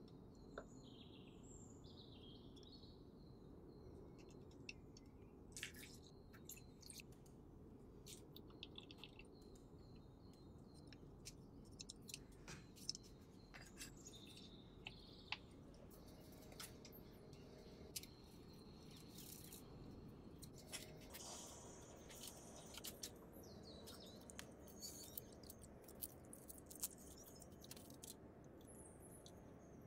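Quiet kitchen handling sounds: a spatula scraping and tapping in a glass mixing bowl of flour, then scattered light clicks, taps and rustles as the bowl is covered and the dough is handled. A few faint bird chirps are heard in the first few seconds.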